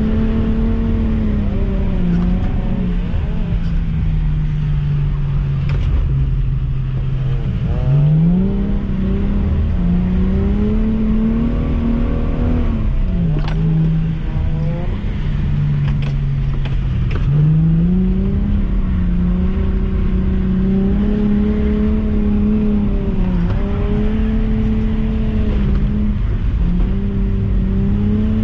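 Nissan V35 Skyline's V6 engine heard from inside the cabin, its revs climbing and dropping over and over under throttle while the car is drifted on a wet skid pan.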